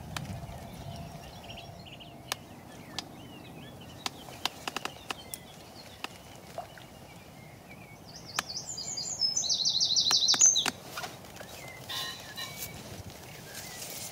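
Songbird singing: a little past halfway, a fast run of high repeated notes for about two seconds, the loudest sound, with quieter chirps from small birds before it and scattered sharp clicks.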